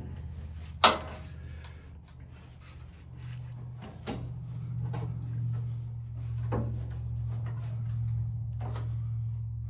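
Knocks and clunks from work on a truck's underside, with one sharp knock about a second in and three fainter ones later, over a steady low hum.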